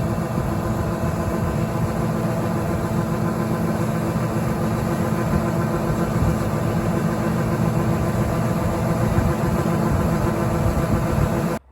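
Heavy diesel farm machinery engine running steadily at a constant speed, cutting off suddenly near the end.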